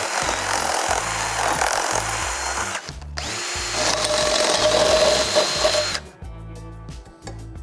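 Electric drill with a 1/4-inch bit boring out the rough rivet holes in steel skillet handles, running in two stretches with a short break about three seconds in, and stopping about six seconds in. Background music plays underneath.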